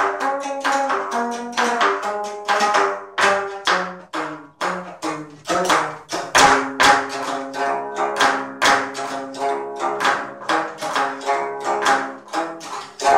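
Geomungo, the Korean six-string fretted zither, played solo: a run of plucked, twanging notes, each with a sharp wooden click on the attack, with a few longer ringing notes in the middle.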